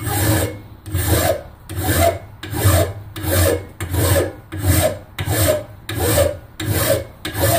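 A plain hand file rasping across the edge of a saw-blade steel knife blank held in a bench vise. It goes in steady, even strokes, about three every two seconds, roughing out the shape and knocking down lumps and high points.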